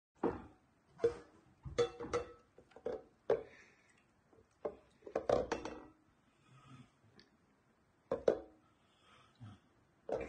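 Water slime squelching and popping in short, irregular squishes as hands pull and stretch it.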